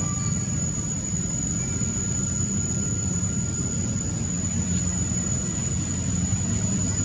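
Steady low rumble of background noise with a constant faint high-pitched whine, and no distinct events.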